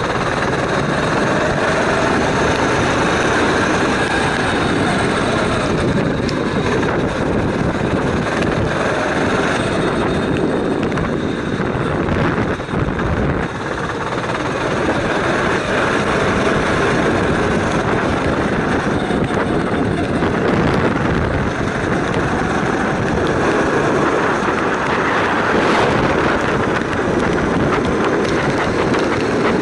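Kart engine running hard, heard close up from on board, with a dense buzzing drone. The revs drop briefly at a slow corner about 13 seconds in, then build again as the kart accelerates.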